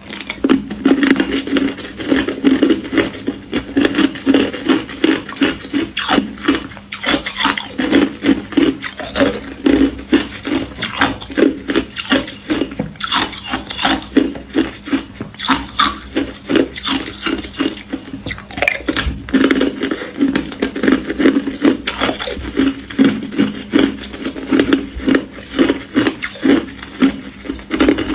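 Thin, crispy ice being chewed close to the microphone: a rapid, continuous run of crunches, about three bites a second, with a short lull a little past halfway.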